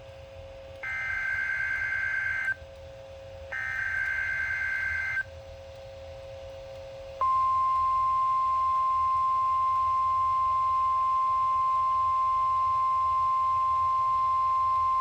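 NOAA Weather Radio alert tones: two short, buzzy digital data bursts (the SAME header), then about seven seconds in a single steady 1050 Hz warning alarm tone held for about nine seconds. Together they signal the start of a severe thunderstorm watch broadcast.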